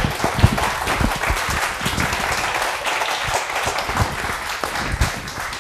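Audience applauding, a dense spread of many hands clapping that eases off near the end.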